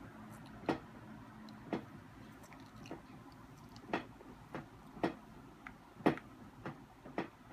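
A toddler eating noodles with plastic fork-spoons from a plastic bowl: sharp clicks and taps about once a second, with chewing. The loudest click comes about six seconds in, and they come a little quicker near the end.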